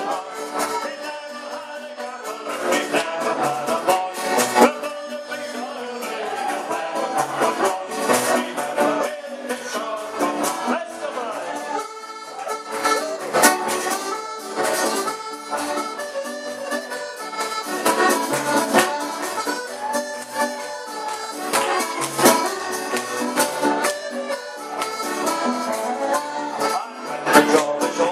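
Live ceilidh band playing a Scottish dance tune, accordion leading over a steady drum beat.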